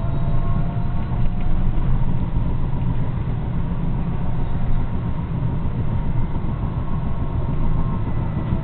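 A tram running along grass-covered track, heard from inside: a steady low rumble from wheels and running gear, with a faint whine above it.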